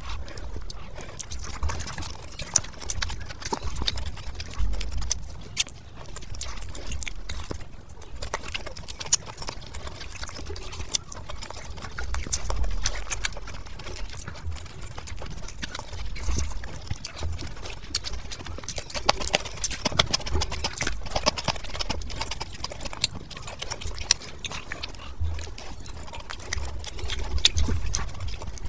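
Close-miked eating of fish biryani by hand: chewing and lip smacking, with frequent short wet mouth clicks and squishes of rice in the fingers.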